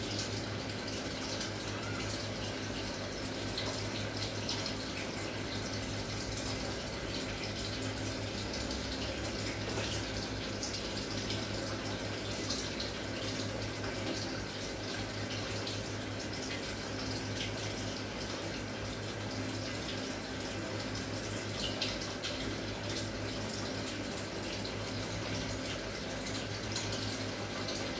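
Aquarium sponge filter bubbling: a steady stream of fine bubbling and crackling from air rising through the water, over a steady low hum.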